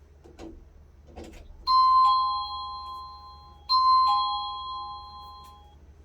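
Electronic doorbell, running on 5 V DC, chiming a two-note ding-dong twice, about two seconds apart. Each time a higher note is followed by a lower one and both fade out. Two soft clicks come shortly before the first chime.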